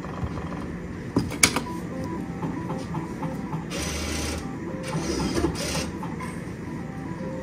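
Slot-game sounds from a fixed-odds betting terminal running the Dragon's Flame game on autoplay: short electronic tones and jingles as the reels spin and stop, spin after spin. A sharp click comes about one and a half seconds in, and two brief hissing swells come in the second half.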